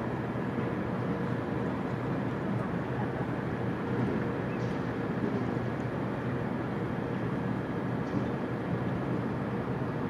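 Steady background drone of distant engines: an even rumble with a faint constant hum over it.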